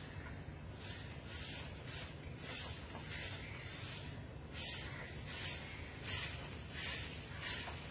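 A broom sweeping the dirt courtyard in short, regular scratchy swishes, about two strokes a second.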